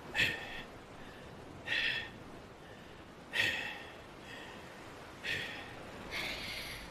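A character's heavy, labored breathing from an animated voice performance: five rasping breaths, about one every second and a half, the sound of a battered, exhausted fighter.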